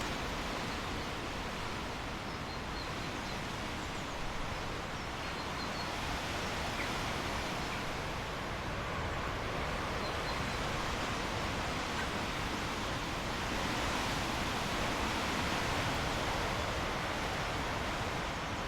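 River water rushing steadily, with a few faint high bird chirps now and then.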